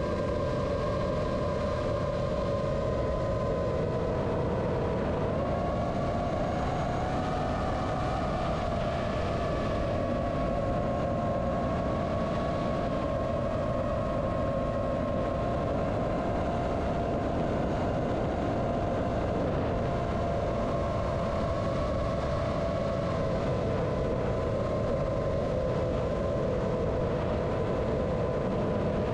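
A 5-inch FPV quadcopter's brushless motors and propellers whining steadily at cruising throttle, with wind and prop-wash rush, heard through the onboard GoPro Hero 9. The whine rises a little in pitch a few seconds in and otherwise holds nearly level.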